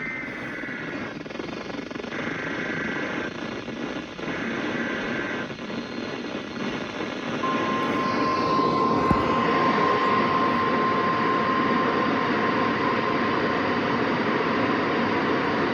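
NOAA Weather Radio alert heard through heavy radio static on a weak signal. Three short warbling data bursts of a SAME header come first, then about a second later the single-pitch warning alarm tone, held steady for about eight seconds. This is the start of a new Special Marine Warning broadcast.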